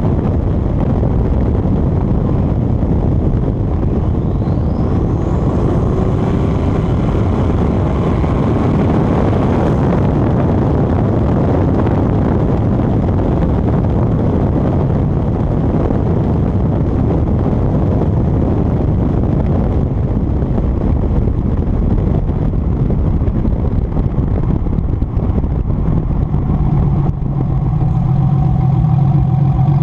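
A turbocharged 3800 V6 in a Pontiac Fiero driving, under heavy wind and road noise on a microphone on the rear decklid. A faint whine rises in pitch a few seconds in. Near the end the engine settles into a steady low hum.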